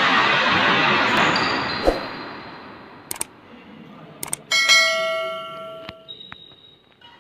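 Subscribe-button sound effect: a loud rushing whoosh that fades over about two seconds, a couple of mouse clicks, then a bell chime that rings out for about a second and a half.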